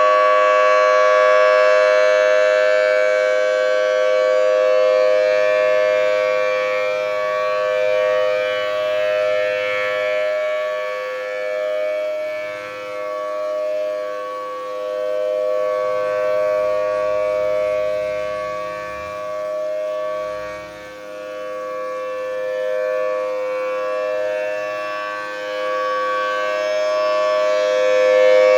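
Thunderbolt 1000T outdoor warning siren sounding a steady test tone: a two-note chord that holds its pitch while the volume swells and fades as the rotating siren sweeps around.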